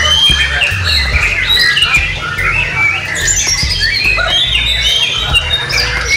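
White-rumped shamas (murai batu) singing, several at once, in a dense overlapping stream of whistles and chattering phrases, with a long falling whistle about halfway through. A low steady rumble runs underneath.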